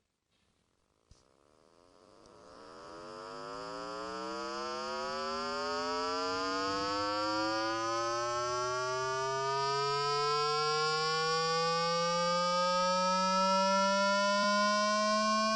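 Water-eject tone for clearing water from a phone speaker: a low tone with many overtones fades in about two seconds in and glides slowly upward in pitch.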